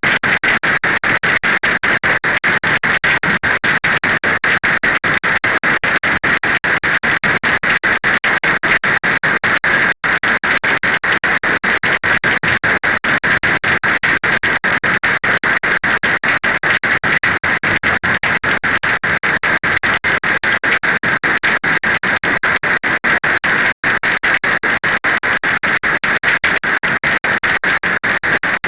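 Heavy rain: a dense, steady stream of drop impacts on a hard surface close to the microphone.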